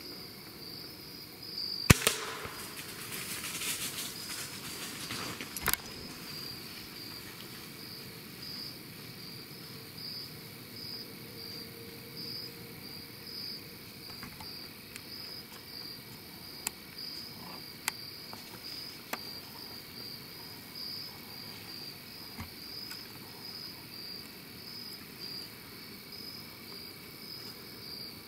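Crickets chirping steadily, a pulsing high trill throughout. About two seconds in comes a sharp, loud crack followed by a few seconds of rustling noise, and another sharp snap near six seconds.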